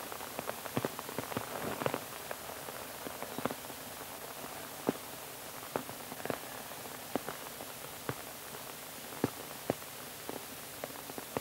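Rain falling on umbrellas: irregular sharp drip ticks, one or two a second, over a steady hiss.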